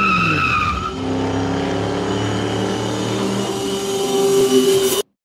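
Car sound effect: a tyre squeal dies away in the first second while the engine's pitch drops, then the engine runs steadily and revs up near the end before cutting off abruptly.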